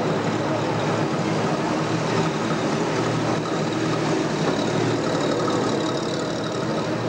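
Engines of old three-axle army trucks running steadily as the trucks drive past one after another.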